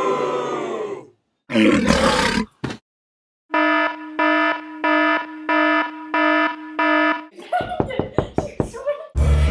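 A string of short sound effects: a slightly falling tone, a brief noisy burst and a click, then a buzzer-like alarm tone pulsing on and off about twice a second for nearly four seconds, followed by a patter of clicks.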